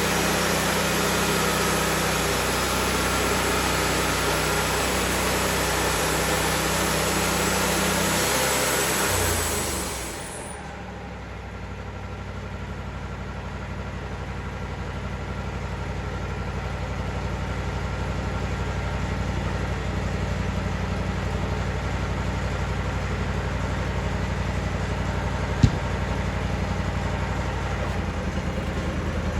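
Wood-Mizer LT40 band sawmill sawing a poplar log, its engine under load with a loud steady cutting noise for about the first nine seconds. The cutting noise then drops away and the engine runs on more quietly, gradually building again, with a single sharp click about 25 seconds in.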